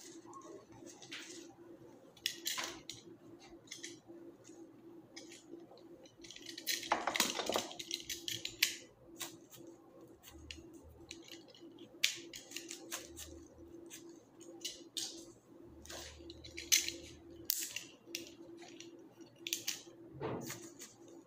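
Florist's hand pruning shears snipping flower stems: sharp snips and clicks at irregular intervals, with a longer rustle of handled foliage about seven seconds in, over a steady low hum.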